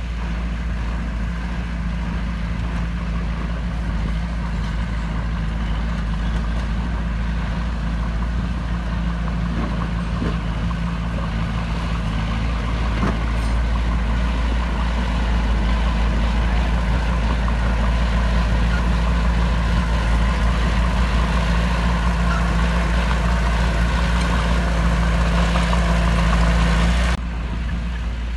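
Heavy diesel engine of earthmoving machinery running steadily, getting a little louder over the second half, then dropping suddenly to a lower level near the end.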